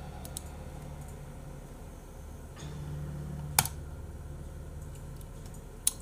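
Sharp computer clicks, the two loudest about three and a half seconds in and near the end, over a steady low hum.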